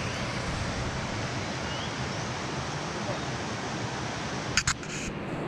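River rapids rushing, a steady, even roar of white water over rocks. Two brief sharp clicks about four and a half seconds in.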